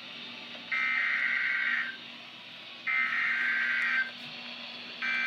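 Emergency Alert System SAME header: bursts of shrill digital data tones, each about a second long with about a second's gap between them. Two full bursts are followed by the start of a third near the end, over a faint steady hum.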